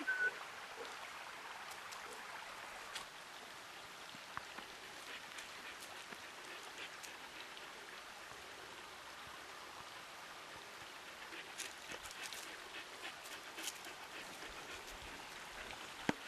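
Faint scattered snaps and rustles of dogs running over the forest floor, with short runs of soft, evenly spaced ticks in the second half.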